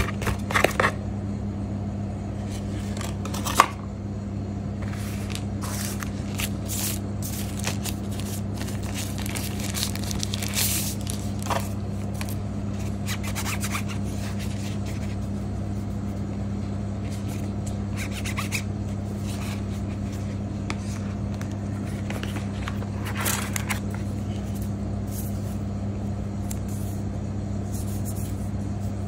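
Paper and plastic packaging being handled: scattered rustles, scrapes and small clicks as a card insert, a clear plastic case and a charger are taken out of a phone box, with one sharp click a few seconds in. A steady low hum runs underneath.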